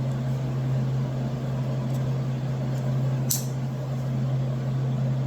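Steady low hum, with one short sharp click about three seconds in as a blade of a multi-tool is handled.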